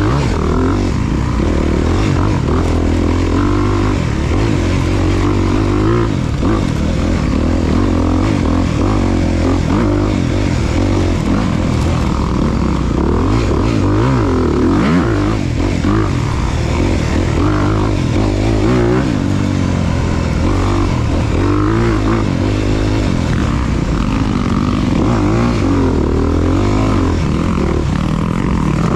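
Off-road motorcycle engine running continuously under a rider, its pitch rising and falling as the throttle is worked.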